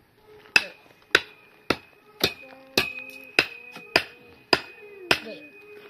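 Metal being struck over and over at an even pace, about nine blows at just under two a second, each leaving a short ringing tone.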